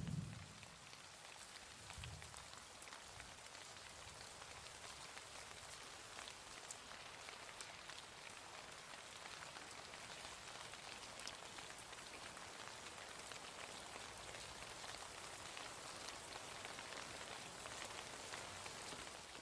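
Heavy rain falling steadily, with fine ticks of drops striking the window glass. A low rumble comes at the very start and a smaller one about two seconds in.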